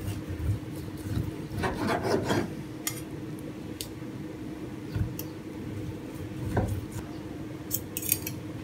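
Chef's knife slicing through cooked kudu fillet on a wooden cutting board, the blade rasping and scraping against the board, with scattered light taps and clicks of knife and fork. A faint steady hum sits under it.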